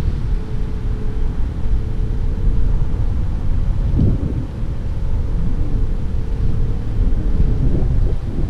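Wind buffeting the microphone: a loud, uneven low rumble, with a faint steady hum above it.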